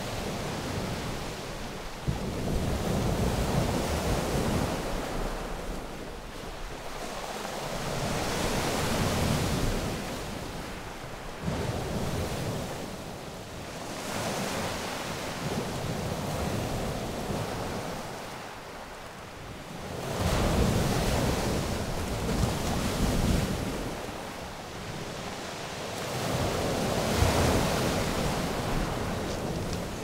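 Surf breaking on a pebble beach, swelling and ebbing every few seconds as each wave comes in, with wind rumbling on the microphone.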